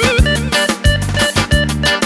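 Instrumental break of a Balkan folk-pop song: a steady drum beat over sustained bass, with a lead melody of short notes, some of them sliding in pitch.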